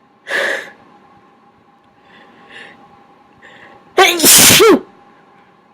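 A person's loud, voiced sneeze a little under a second long, about four seconds in, as they work at inducing sneezes. Before it come a short sharp rush of breath near the start and a couple of faint breaths.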